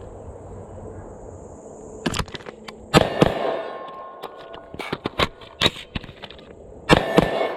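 Carbine fired in two quick pairs, each pair's shots about a quarter second apart, the pairs about four seconds apart. Between the pairs come the clicks and clacks of a magazine change: a combat reload.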